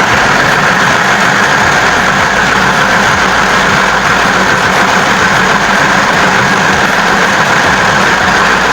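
Mini electric sewing machine running steadily at full speed, sewing through four layers of school-uniform fabric. It stops abruptly at the end.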